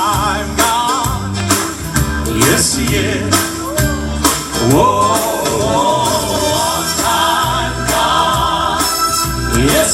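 Gospel vocal group and choir singing live through a PA system over instrumental backing with a steady beat, the voices holding long notes with vibrato.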